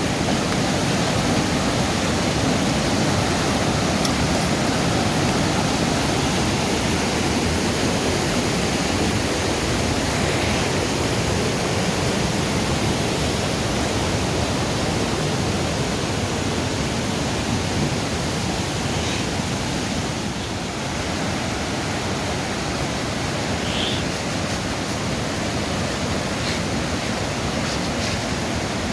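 Steady rushing of water, an even noise that holds the same level throughout.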